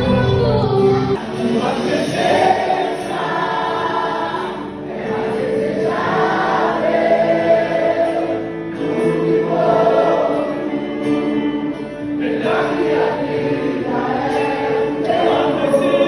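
Worship music: a choir singing a slow gospel song in long, held notes. The low bass drops away about a second in.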